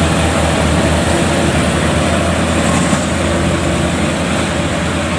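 Engine of tracked rice-harvesting machinery running steadily under load, a constant low hum under a broad mechanical rush.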